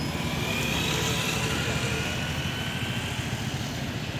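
Mixed road traffic passing, with vehicle engines running over a steady low rumble. A high whine slowly drops in pitch through the middle.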